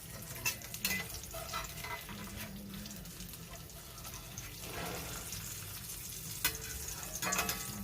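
An egg frying in a Lodge cast iron skillet, sizzling and crackling steadily, with a few sharp clicks.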